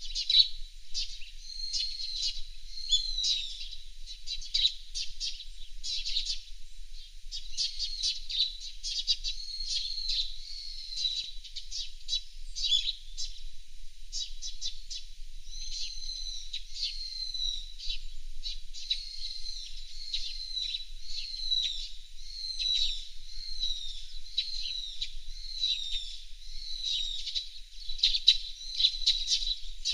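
Small songbirds chirping steadily, a dense run of high, quick calls with many short falling notes.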